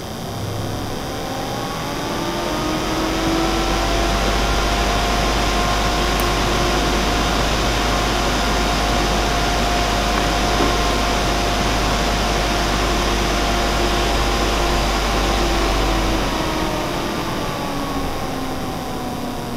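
12 V DC cooling fan speeding up under a thermistor speed controller as the sensor is heated: its whine rises in pitch over the first few seconds. It then holds steady at high speed with a rush of air, and slows near the end, the whine falling, as the sensor cools.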